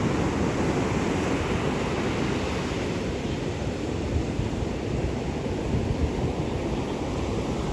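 Atlantic Ocean surf washing onto the beach: a steady rush of breaking waves, with wind on the microphone.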